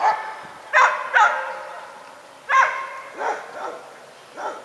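A dog barking off-screen: about seven short barks, in ones and twos with pauses between.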